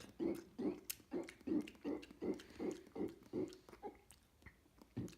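A long, guttural human burp after drinking a full bottle of Coke, coming up as a string of low pulses about three a second. It stops for a moment about three and a half seconds in, then starts again near the end.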